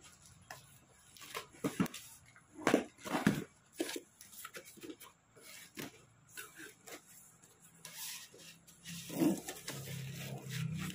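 A cardboard shipping box being opened: packing tape cut and pulled loose, with the cardboard flaps crackling and creaking as they are bent back. Scattered sharp clicks and crinkles run throughout, a couple of them louder a few seconds in. Near the end a low droning sound joins in.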